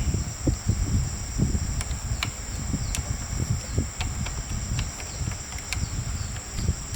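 Steady high-pitched insect drone, like crickets, with irregular low rumbling and scattered light clicks and knocks underneath.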